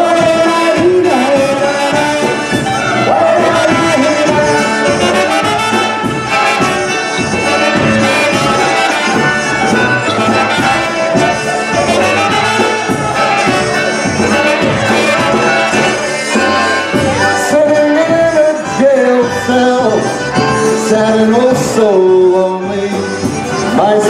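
Live polka band playing a lively polka, with trumpet and clarinet carrying the melody over drums and concertina.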